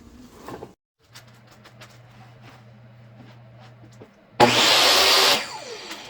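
A power tool cuts wood in one loud burst of about a second, then its motor winds down with a falling whine. Before it there is a steady low hum with light knocks.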